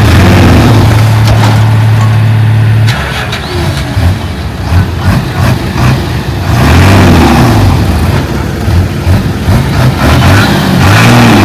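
Heavy earthmoving machine's diesel engine running: a steady even note for about three seconds, then revving up and down over and over.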